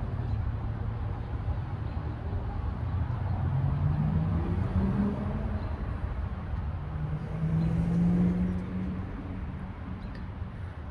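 Low, steady rumbling of thunder, with a road vehicle's engine passing that swells loudest about four and again about eight seconds in.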